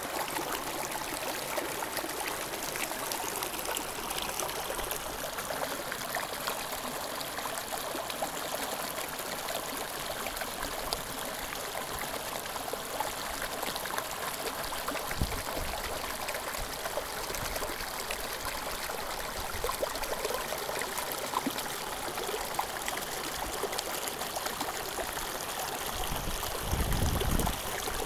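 Mountain torrent running: a steady, even rush of flowing water. A low rumble swells in near the end.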